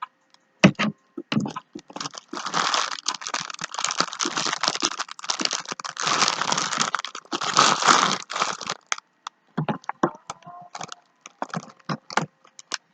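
Plastic sandwich wrap crinkling and crackling as it is handled and torn open, in dense stretches with many sharp crackles, thinning to scattered crackles near the end.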